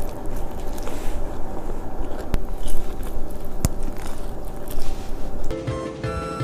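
Close-miked biting and chewing of food, with sharp crunchy clicks. Music comes in about five and a half seconds in.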